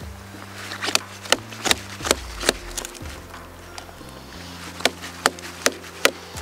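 Chopping blows on wood: sharp knocks in two regular runs, five and then four, about two and a half a second, with low background music.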